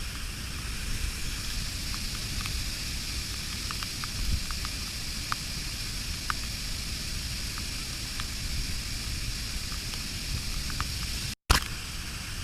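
Waterfall water pouring and splashing in a steady rush, with scattered small splashes. The sound cuts out briefly near the end.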